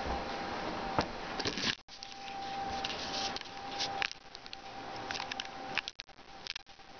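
Handling noise from a video camera being picked up and carried: rubbing and scattered knocks on its body, with a faint steady hum underneath.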